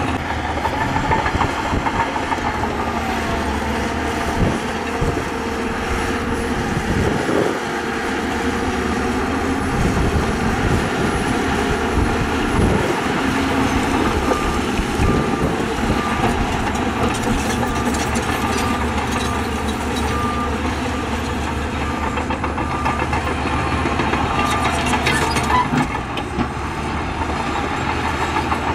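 Heavy diesel earthmoving machinery, bulldozers and dump trucks, running under load, with clanks and scrapes of rock that are densest in the first half. About halfway through, a reversing alarm beeps faintly for several seconds.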